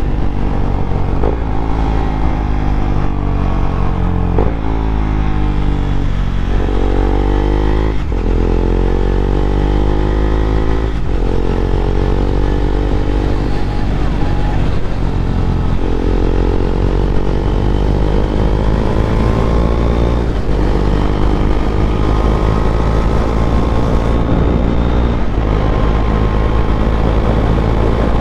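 KTM Duke 390's single-cylinder engine through an Austin Racing aftermarket exhaust, the motorcycle accelerating up through the gears: the pitch climbs, drops at each shift every few seconds, then holds steadier for the last third.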